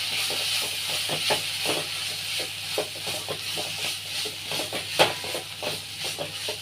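Onions, grated yellow pumpkin and coconut sizzling in oil in a pan while a spatula stirs them, scraping and tapping against the pan; one sharp knock about five seconds in is the loudest.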